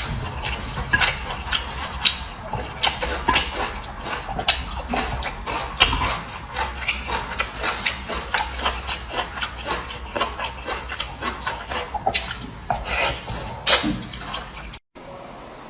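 Close-miked eating sounds: irregular chewing, with wet mouth smacks and clicks several times a second. They cut off abruptly near the end.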